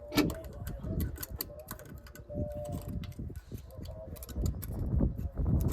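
Irregular sharp metallic clicks and knocks of hand tools working on a six-cylinder diesel engine's valve gear during tappet adjustment, over a low background rumble.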